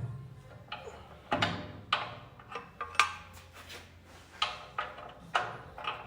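Irregular metal clanks and knocks, about a dozen of them, each with a short ring, as steel suspension parts and U-bolts are worked into place on a truck's rear axle.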